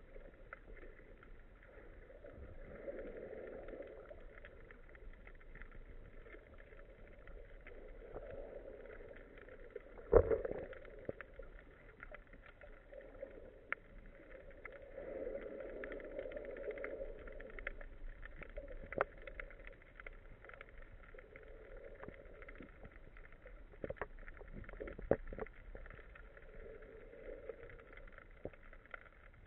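Muffled underwater sound heard through a camera housing on a speargun: slow swells of water noise every few seconds, with scattered faint clicks, a sharp knock about ten seconds in and a couple more knocks near the end.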